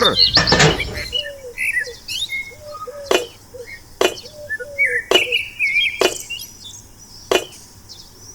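Short chirping calls with a sharp tap roughly once a second; a falling swoosh opens it.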